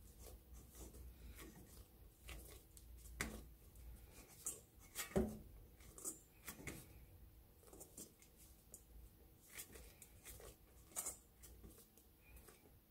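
Faint, irregular soft thuds, squishes and light knocks of a hand kneading and pressing the air out of risen bread dough in a stainless steel mixing bowl, the loudest thud about five seconds in.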